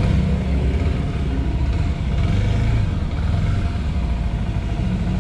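Single-cylinder engine of a Kawasaki Ninja 250 SL motorcycle running with a steady low rumble.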